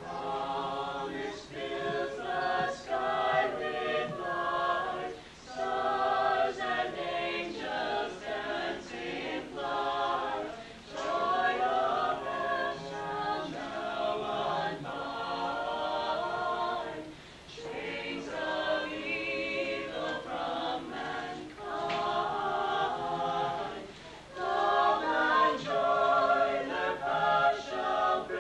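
Small mixed choir of men's and women's voices singing a chorale a cappella, in sustained phrases of about five to six seconds with brief breaks between them.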